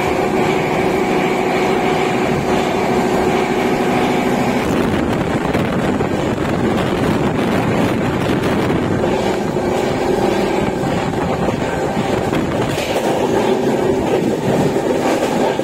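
Express train running at speed, heard at an open coach door: wheels on the rails and rushing air, with a steady whining tone for the first few seconds. A train on the next track passes close alongside midway.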